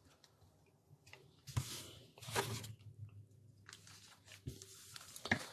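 Japanese Pokémon booster pack's foil wrapper being handled and cut open with scissors: a few faint, separate crinkles and snips.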